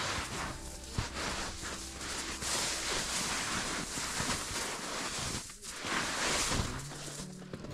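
Wind buffeting the microphone in a snowstorm, an even rushing hiss, with the crunch of footsteps in snow.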